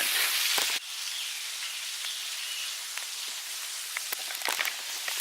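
Steady hiss of falling water from a small waterfall, dropping suddenly to a quieter level about a second in, with a few faint clicks near the end.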